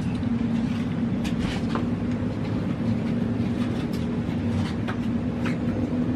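Steady mechanical hum with a low drone and a strong steady tone, with faint scattered clicks over it.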